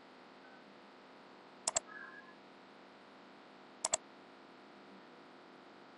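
Two quick double clicks of a computer mouse button, about two seconds apart, over a faint steady hiss.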